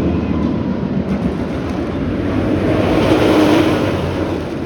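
Roller coaster train on a test run passing by on the RMC hybrid steel track over its wooden structure, running loudly. It builds to its loudest about three seconds in, then fades as the train moves away.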